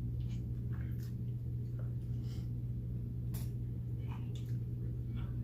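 Eating sounds close to the microphone: soft chewing and scattered small clicks and taps of food handling, over a steady low hum.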